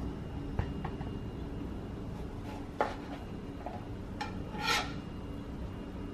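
Chef's knife cutting strawberries on a plastic cutting board: a few scattered knocks of the blade against the board, the sharpest just before the three-second mark, and a short scrape a little later, over a faint steady hum.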